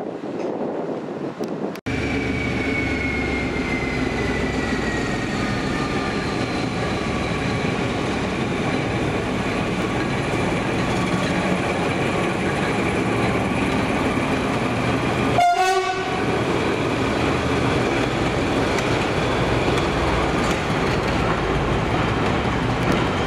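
Wind on the microphone for about two seconds, then a Class 14 diesel-hydraulic locomotive running slowly past close by: a steady engine rumble with a whine that falls slowly in pitch. After a brief break about two-thirds through, the rumble of a passing train carries on.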